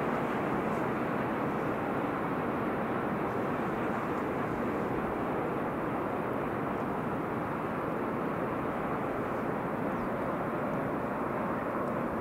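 Steady rumble of a freight train's wagons rolling on the rails as the train draws away, slowly fading.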